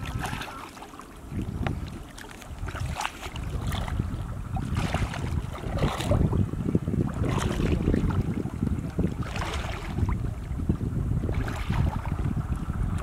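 Wind buffeting the microphone, a continuous low rumble, with brief sharp noisy sounds every second or two.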